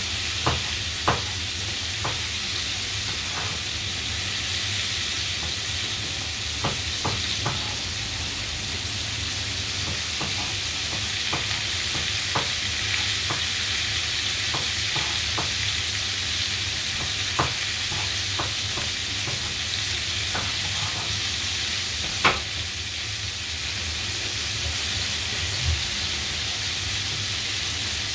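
Coated chicken pieces shallow-frying in hot oil in a frying pan: a steady sizzle with scattered sharp pops, the loudest about twenty seconds in.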